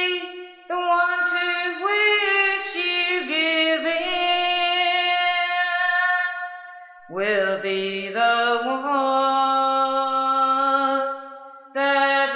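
A woman singing a slow melody with no instruments, holding long, slightly wavering notes in chant-like phrases that break off twice for a breath.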